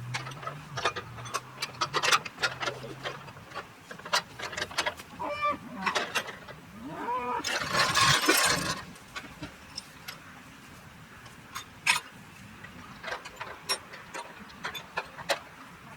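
Scattered knocks and clanks from work on metal livestock panels, with a cow calling once in the middle, followed by about a second of harsh rasping noise.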